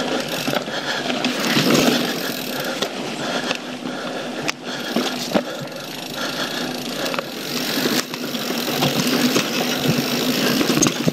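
YT Jeffsy full-suspension mountain bike ridden fast over dirt singletrack: a continuous rolling rumble of knobby tyres on dirt and roots, with wind rushing over the camera microphone. A few sharp knocks and rattles come from the bike hitting bumps and rocks.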